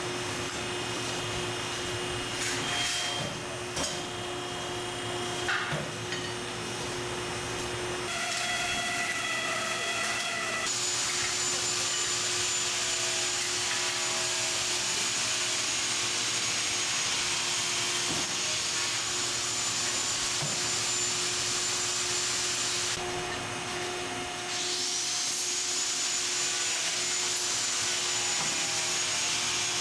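Namsung busbar punching, cutting and bending machine working on a copper busbar. A steady hum with a few clicks in the first seconds, then a loud steady hiss with a thin high whine from about ten seconds in. The hiss breaks off briefly near the 23-second mark and starts again, its whine sweeping up and levelling off.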